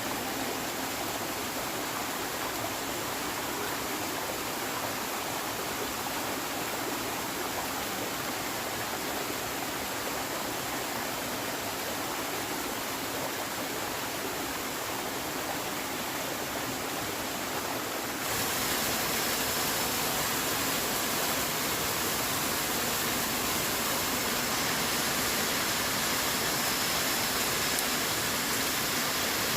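Steady rushing of running water, with no rhythm or distinct events. About two-thirds of the way through it turns abruptly louder and hissier.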